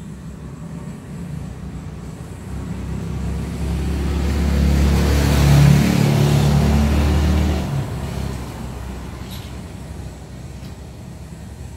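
A motor vehicle passing by, its engine and tyre noise rising to a peak about halfway through and fading over a few seconds.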